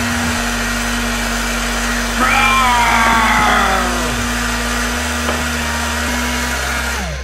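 Toy bubble machine's small battery fan motor running with a steady hum, then slowing with a falling pitch just before the end. A brief whistling sound that slides down in pitch rises over it about two seconds in.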